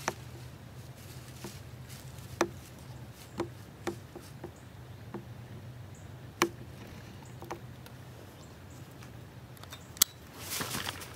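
Quiet woods with a steady low hum, broken by about ten soft, short clicks and crunches at uneven intervals, the sharpest a little after two seconds in, about six seconds in and about ten seconds in.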